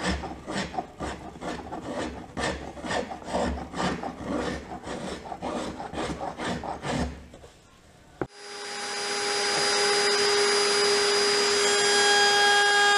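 Hand tool shaving a small hardwood piece in quick rhythmic strokes, about two to three a second, stopping about seven seconds in. A second later a click, and a router in a router table spins up to a steady high whine, the loudest sound here.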